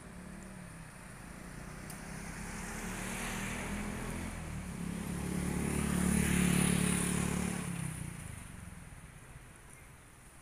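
Motor vehicles passing on the road close by: engine and tyre noise swells and fades twice, a smaller pass about three seconds in and a louder one a little past the middle that dies away near the end.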